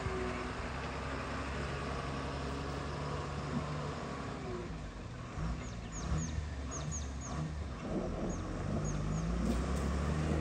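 Bus diesel engine running under load as the bus crawls up a muddy track, its pitch rising and getting louder toward the end as it comes closer. Short, high, falling bird chirps come in small groups during the second half.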